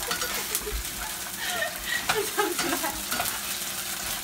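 Chopped onion, garlic and ginger frying in oil with tomato sauce in a black frying pan, sizzling steadily while a spatula stirs them, with scattered scrapes and clicks against the pan.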